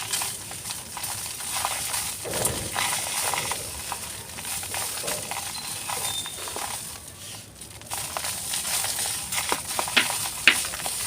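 Chunks of handmade pure-cement texture being crumbled: a continuous crunching crackle with scattered sharp clicks.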